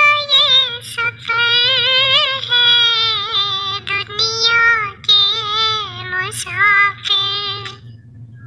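A high-pitched, child-like voice singing a naat, an Islamic devotional song, in long wavering phrases with short breaks between them.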